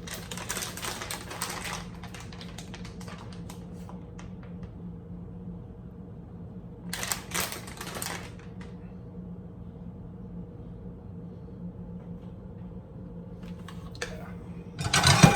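Cookware being handled in a kitchen: a run of quick, light clicks and rattles, with a louder clatter about seven seconds in, over a steady low hum.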